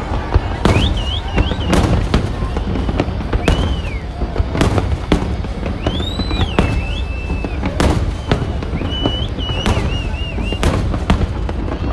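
Aerial fireworks shells bursting overhead: a dozen or so sharp bangs at irregular intervals over a steady low rumble.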